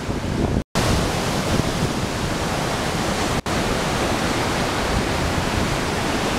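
Merced River whitewater rushing over granite boulders, a steady loud rush of water. It cuts out completely for an instant just under a second in and dips again briefly about halfway through.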